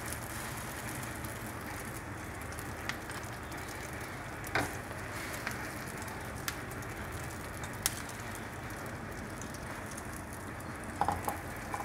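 Beaten egg with chopped onion, tomato and chilli sizzling steadily in hot oil on a flat griddle (tawa), with a few light clicks of a fork against the pan.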